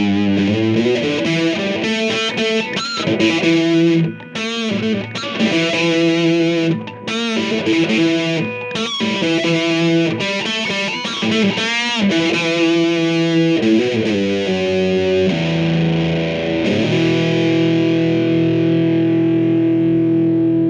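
Electric guitar played with distortion through a Behringer HA-40R combo amp's Bugera 10-inch speaker: a run of picked notes with string bends, ending on a held chord left ringing for the last few seconds. The owner finds this speaker's tone a little muddy, as if it had a blanket over it.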